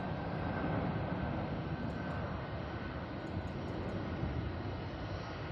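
A Boeing 747's four jet engines on final approach, a steady drone, with a faint thin whine above it that fades out about two seconds in.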